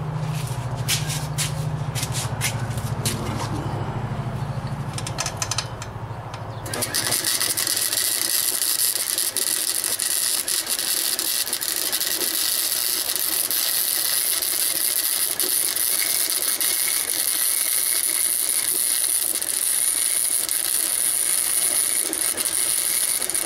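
Stick (arc) welder laying a weld on steel angle iron: a steady hiss that starts abruptly about seven seconds in and runs until it stops suddenly at the very end. Before the arc starts there is a low hum with scattered clicks.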